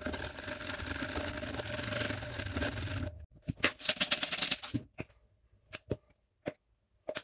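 A wire whisk beats eggs in a plastic container, a rapid, steady scratchy ticking, until it cuts off about three seconds in. Then a pepper grinder is twisted over a container of flour for about a second and a half, a burst of crunchy clicks, followed by a few faint taps.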